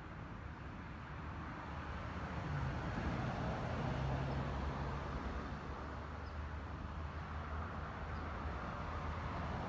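Steady outdoor background noise with a low hum that swells for a few seconds about two seconds in, then settles.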